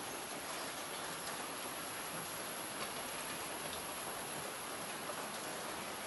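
Steady rain falling, with faint ticks of individual drops.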